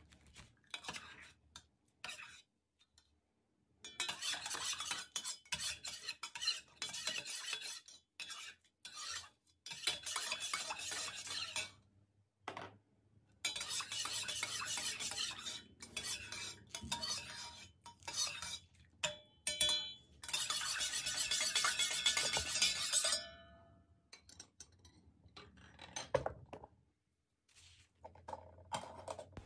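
A spoon stirring in a small cezve pot, scraping and clinking against the sides as honey and spices are mixed into the tea. It comes in spells of a few seconds separated by short pauses, with a few ringing clinks near the end.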